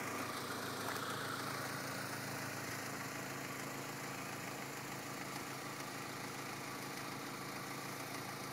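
Audi A4's engine idling steadily.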